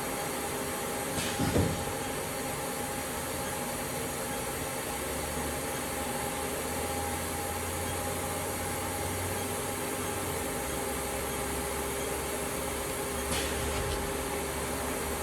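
1998 Haas HL-6 CNC lathe running under power, a steady machine hum with several fixed tones and a low drone. A short knock sounds about a second and a half in, and a fainter one near the end.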